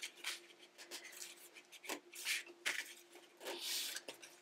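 Natural rattan reed weavers rubbing and scraping against the spokes as they are pushed down by hand to tighten the weave of a basket: a string of short, irregular scrapes, the longest near the end.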